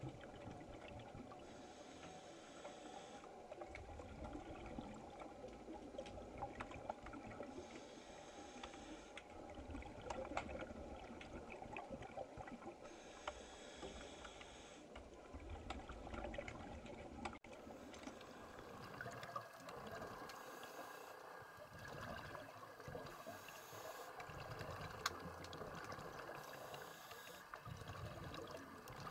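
Faint underwater sound of a scuba diver breathing through a regulator: a hiss of inhalation followed by a low burble of exhaled bubbles, repeating about every five to six seconds, over scattered faint clicks.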